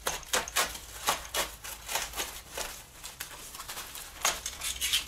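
Plastic wrapping film crinkling and tearing as a parcel is unwrapped by hand, in irregular quick crackles.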